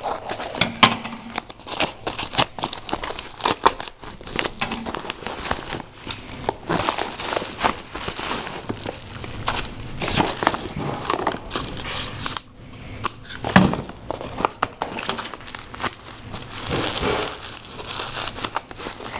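Packaging being crumpled and torn open, with continuous crinkling and many sharp crackles.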